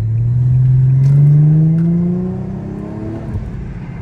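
Infiniti G35's V6 exhaust, resonator deleted, accelerating: the engine note climbs steadily for about two seconds, then eases off to a lower drone as the throttle is lifted.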